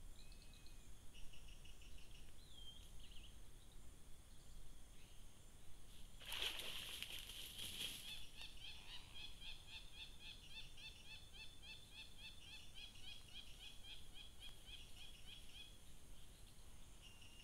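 Night-time tropical forest ambience: a steady high insect hiss with scattered chirping calls. About six seconds in comes a short, loud burst of noise, followed by a long run of fast, evenly repeated chirps that stops near the end.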